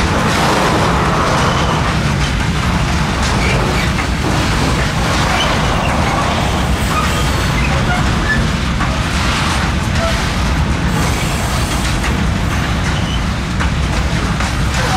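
Train running along the track: a steady, loud rumble with no breaks.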